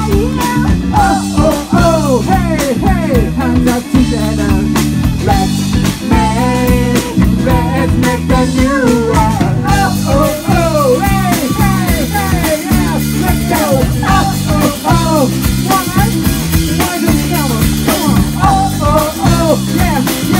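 A live rock band playing loudly: sung lead vocals over a drum kit, electric guitar and bass guitar keeping a steady driving rhythm.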